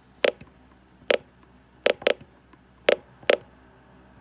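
Six short, sharp clicks, about one a second with two quick doubles, from buttons being pressed on a weather alert radio while stepping through its list of stored missed alerts.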